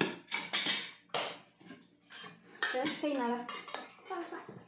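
Metal spoons clinking and scraping against stainless-steel rice bowls and plates, a run of sharp, irregular clinks.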